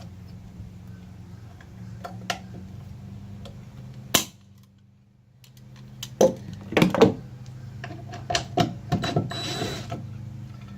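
Scattered clicks and knocks of hand tools and hardware being handled while a screw or fitting is worked loose, over a steady low hum. The sharpest knock comes about four seconds in, and a cluster of knocks follows in the second half.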